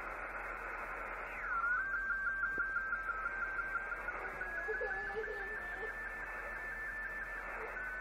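Radio transceiver's receiver audio: band hiss with a steady whistling tone that drops in pitch about a second in, then holds and slowly rises while pulsing several times a second. Faint warbling lower tones come and go in the middle. The signal itself is unidentified.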